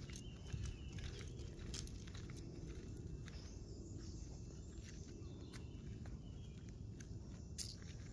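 Faint outdoor walking sounds: scattered footsteps and rustles on paving and leaf-strewn grass, over a low steady rumble, with a few faint high chirps.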